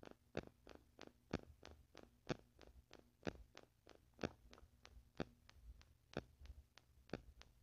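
Near silence: faint room hum with soft ticks, the louder ones coming about once a second with weaker ones in between.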